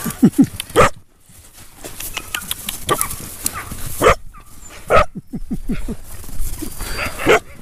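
Several dogs barking in short, sharp barks that come in quick clusters, loudest in the first second and again about four, five and seven seconds in; young loose kennel puppies are crowding and jumping close by.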